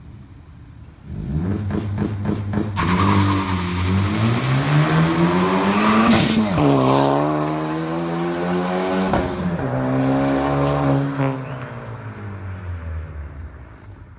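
Tuned Ford Focus ST accelerating hard from a launch. The revs climb, then drop back at a gear change about six seconds in with a sharp crack, and drop again at a second change about nine seconds in. After that it eases off and fades away.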